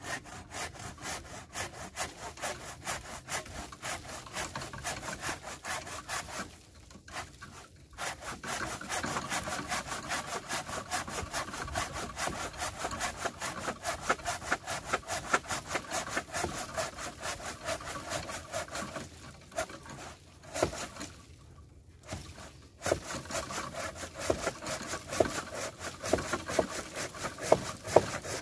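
Hand saw cutting through a dead willow log with fast back-and-forth strokes. It stops briefly twice.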